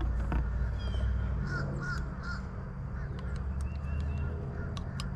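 A bird gives three short, harsh calls in quick succession about a second and a half in, over a steady low rumble and a few scattered clicks.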